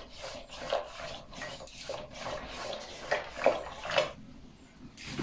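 A wooden stirring stick twirled between the palms in a metal pot of thin maize-flour porridge: repeated rubbing and scraping strokes, about two or three a second, with a few sharper knocks of stick on pot about three seconds in. The strokes stop about four seconds in.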